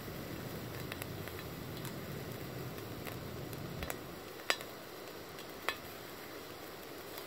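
Bacon sizzling in a frying pan on a portable gas camping stove, a steady hiss that eases slightly about four seconds in. A few sharp ticks stand out over it, the loudest about four and a half seconds in.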